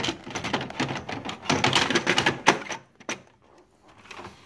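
Plastic toner cartridge being slid into a Xerox Phaser 3330 laser printer and seated: a dense clatter of plastic clicks and knocks for the first two and a half seconds, then a single click about three seconds in.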